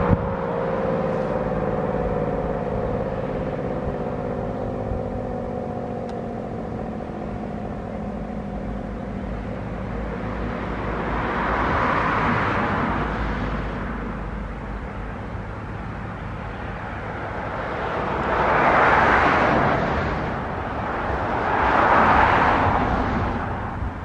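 Federal Sign & Signal SD-10 and Model 2 outdoor warning sirens winding down after a short alert test, their tones sliding lower and fading over the first several seconds. Later, a rushing noise swells up and dies away three times.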